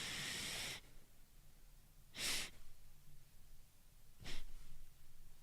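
A person taking three deep, quick inhales through the nose, about two seconds apart, the first lasting about a second: the opening of a breathing technique for stopping hiccups, done before holding the breath.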